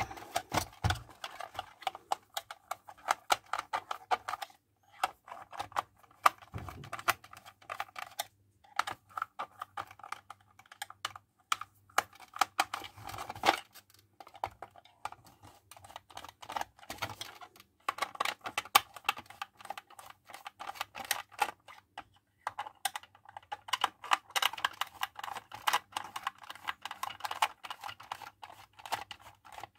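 A screwdriver backing long screws out of the plastic housing of an old Philips hand mixer: dense runs of rapid small clicks and scrapes, broken by a few short pauses.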